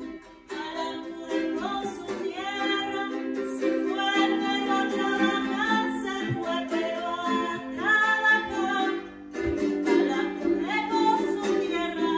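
A woman singing a song while strumming chords on a small, ukulele-sized guitar; the song comes in about half a second in.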